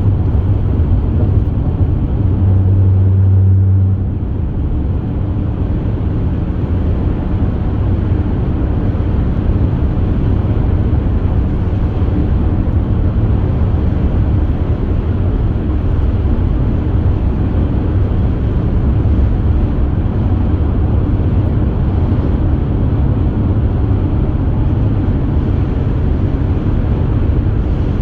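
Steady road and engine noise heard from inside a moving car, a low rumble. A low hum stands out for a couple of seconds near the start, then fades as the rumble eases slightly.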